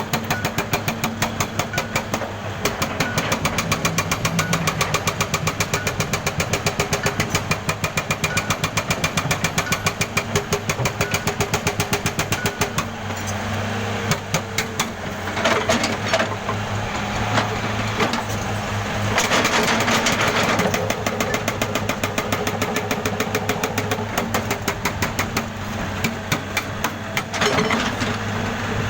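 Jackhammer pounding with a rapid, even run of blows over a steady low engine hum. The hammering turns rougher and noisier for a while past the middle.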